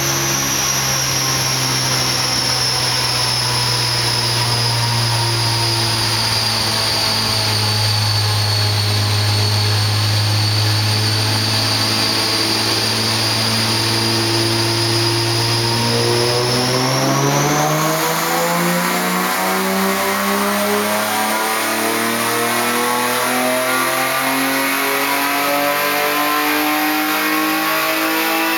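BMW Z3 race car's engine running on a chassis dyno, held at a steady speed on the rollers with a high whine above it; a little over halfway through, the revs start climbing steadily and keep rising to the end, a power run under load.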